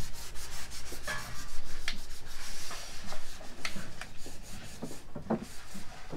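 Hand sanding of a plywood drawer box with sandpaper, smoothing dried lacquer glazing putty: irregular scratchy rubbing strokes with a few light knocks against the wood.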